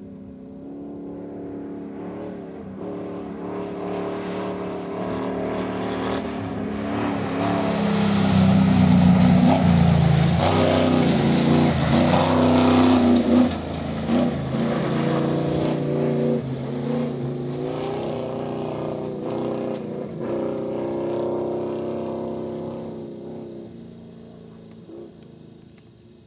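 Off-road Chevrolet Blazer's engine running hard across a desert dirt track, its pitch rising and dropping with throttle and gear changes. It grows louder as the truck approaches, is loudest about a third of the way in, then fades as it drives away.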